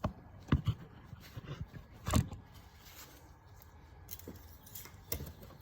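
A few short clicks and scrapes of metal handling in the engine bay, the loudest about two seconds in, as the engine oil dipstick is seated in its tube and drawn out to check the level after an oil change.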